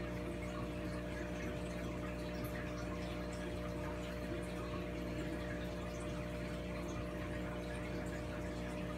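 Aquarium pump and filter running: a steady mains-like hum with several pitches over a constant sound of moving water.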